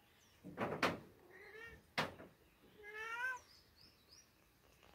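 A cat meowing twice, short calls that rise and fall in pitch, between a few sharp snaps as ripe chili peppers are plucked from the plant.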